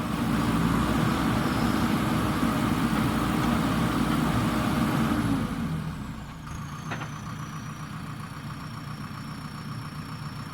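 JCB backhoe loader's diesel engine running loudly and steadily, then dropping back to a quieter idle a little over halfway through.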